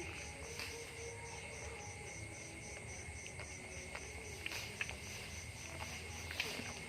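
Insect chirping, most likely a cricket: an even pulsing at about five chirps a second over a steady high tone, with scattered faint clicks.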